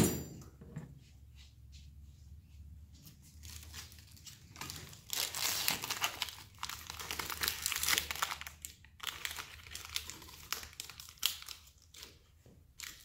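Clear plastic hardware packaging crinkling and tearing as it is handled and opened, in irregular spells strongest from about the middle on; a sharp knock right at the start.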